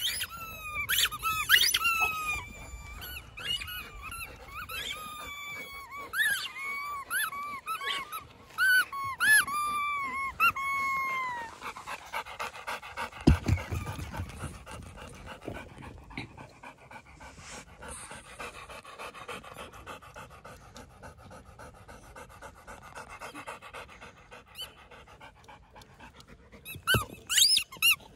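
Squeaky rubber dog ball being chewed, giving a quick run of short rising-and-falling squeaks for about the first ten seconds. Then a dog pants close by, with one low thump, and the squeaking starts again near the end.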